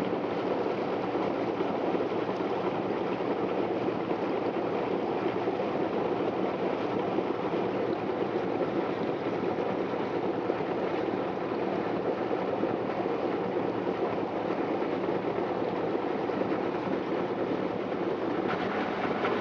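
Small excursion boat under way, its engine running steadily with the rush of water from the wake.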